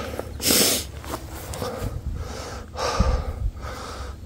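A man breathing hard while climbing a mountain slope, with heavy breaths about once a second, the loudest about half a second in. A low thump about three seconds in.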